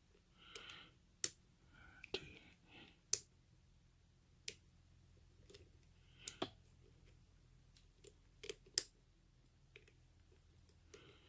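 Lock pick and tension wrench working the pin stack of a Brinks 642 padlock with security pins: a dozen or so sharp, irregularly spaced metallic clicks as the pins are lifted and set.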